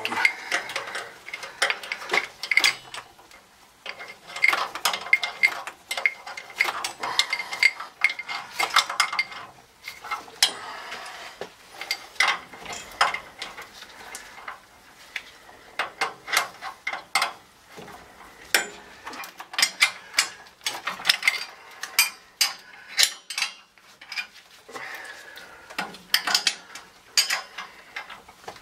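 Wrench clicking and clinking on metal as the flange bolts of a newly fitted hot-water circulator pump are tightened, in irregular runs of sharp clicks with some ringing metal clinks.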